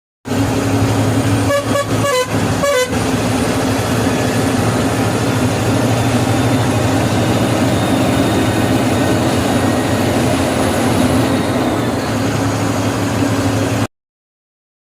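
Steady road-vehicle engine drone and road noise, with a few short horn toots about two seconds in; the sound cuts off suddenly near the end.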